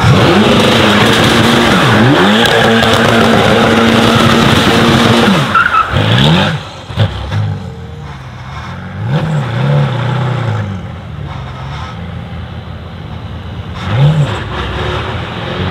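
The 4.0-litre twin-turbo V8 of a Mercedes-AMG GT Track Series revs up and down repeatedly while its rear tyres spin and squeal in smoking donuts. After about six seconds it drops quieter, with a few more rev rises and a sharp blip near the end.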